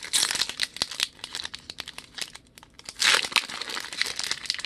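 Foil wrappers of Upper Deck Signature Stars trading-card packs crinkling as they are handled and torn open, with a louder burst of crinkling about three seconds in.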